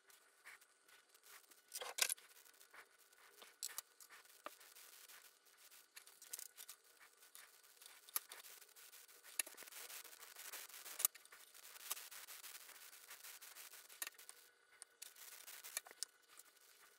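Faint scattered clicks, ticks and small scrapes of fine hand work: a resistor's wire leads being bent by hand, then metal tweezers and a soldering iron tip touching a small LED circuit board as the resistor is soldered on. The sharpest ticks come about two seconds in and again near the middle.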